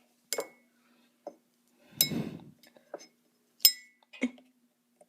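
Metal knife clinking against a mug while poking microwave-melted Skittles inside it: four short, sharp clinks, the loudest about two seconds in.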